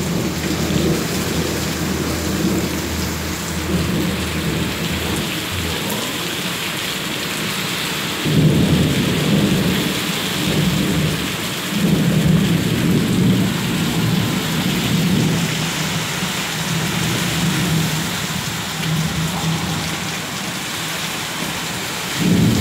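Heavy rain pouring steadily, with low rumbles of thunder swelling up about a third of the way in, again around halfway, and once more at the very end.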